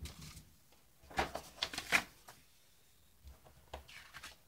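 Paper leaflets and packaging being handled and shuffled: a burst of rustles and light taps about a second in, and fainter handling near the end.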